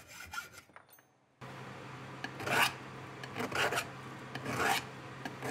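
A flat hand file rasping on the cut end of a 1/4-inch steel rod, in slow strokes about one a second, with a faint steady hum underneath.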